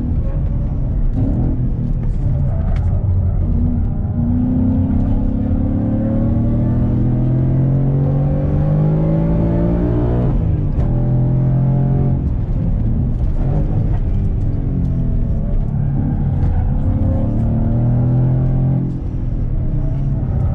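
Ford Mustang engine heard from inside the cabin, pulling hard on track. The revs climb for several seconds, drop sharply about halfway through, then rise and fall again, easing off briefly near the end.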